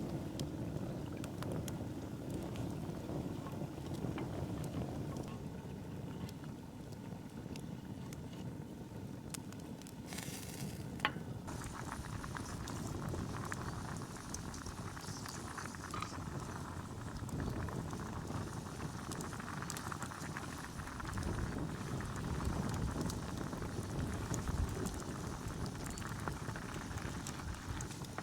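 Food bubbling steadily in a cooking pot, with a single sharp click about eleven seconds in.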